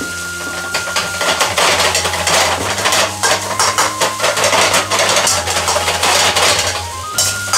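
Metal ladle clanking and scraping against a wok in rapid, irregular knocks while rice is stir-fried over a gas burner.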